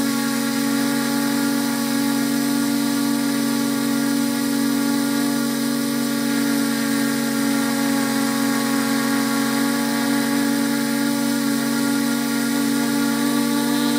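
Camera drone's motors and propellers running with a steady, even whine made of several constant tones.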